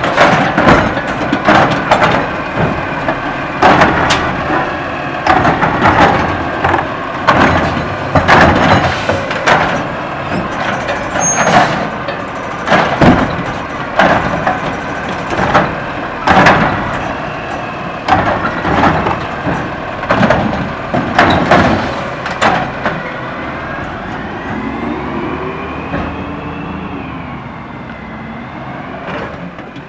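Autocar ACX garbage truck with a DaDee Scorpion automated side-loader arm grabbing, lifting and dumping trash carts over its running engine: a long run of loud bangs and clatter as the carts are shaken out and set down. Near the end the banging stops and the engine rises in pitch as the truck pulls away.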